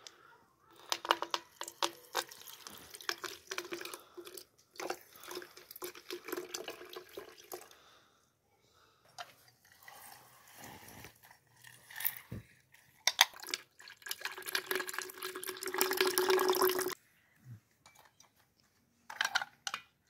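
Kinnow mandarin halves squeezed in a hand-held aluminium lever juicer, juice splashing and dripping into a plastic jug, with clicks and knocks from the metal press. A longer steady run of liquid comes late on.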